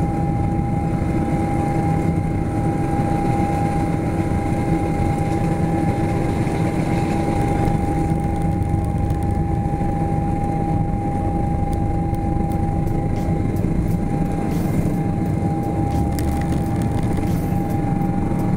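In-cabin sound of a Boeing 777-200LR on its takeoff roll: its GE90 engines at takeoff power with a steady whine over a deep rumble from the wheels on the runway. Clicks and rattles pick up in the second half as the aircraft nears rotation.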